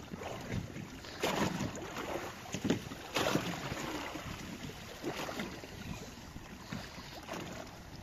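Sea water lapping and splashing against the side of a small boat in irregular washes, with wind on the microphone.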